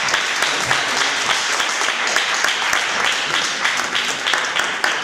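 Audience applauding: dense, steady hand clapping from a roomful of people.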